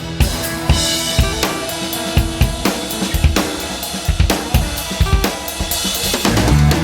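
Background music led by a drum kit: kick drum, snare and cymbals playing a steady beat over held instrumental tones.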